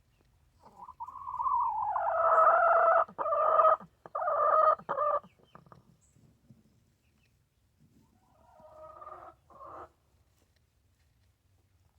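Wheezing breaths: a long, pitched, rasping wheeze starts about a second in, falls in pitch at first, then breaks into three pulses. A fainter, shorter wheeze follows about eight seconds in.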